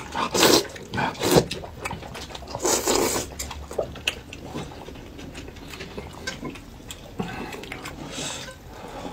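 Noodles slurped from a bowl of soup, with three loud slurps in the first three seconds, followed by quieter chewing and mouth noises.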